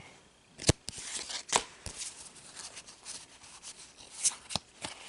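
Hands handling a small stack of freshly pulled Pokémon trading cards: short sharp snaps and rustles of card stock, the loudest snap about two-thirds of a second in.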